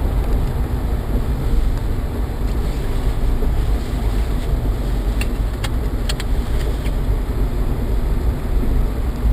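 Steady low road and engine rumble heard inside a moving car's cabin, with a few light clicks about five to seven seconds in.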